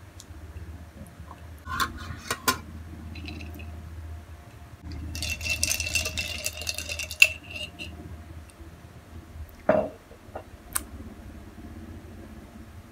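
Tableware and utensils clinking and knocking during a meal: a few sharp clicks about two seconds in, a longer rattling stretch in the middle, and a single knock near the end.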